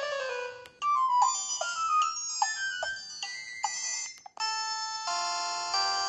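LG VX4400 flip phone's preloaded ringtones playing through its speaker as the ringer menu is scrolled. A repeating falling arpeggio stops just under a second in and a quick melody of short bleeping notes takes over. After a brief break about four seconds in, a tune of held chords begins.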